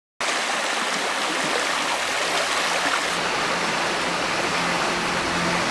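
Steady rushing of flowing river water, cutting in suddenly just after the start.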